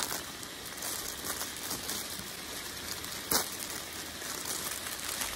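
Steady sizzling hiss from a hot, steaming frying pan on a portable gas stove, with a plastic vegetable bag crinkling and one sharp click a little over three seconds in.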